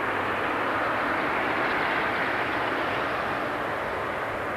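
Boeing 777-300ER's GE90-115B turbofans at takeoff thrust as the jet rolls past on its takeoff run: a loud, steady roar that swells to a peak about two seconds in and eases slightly toward the end.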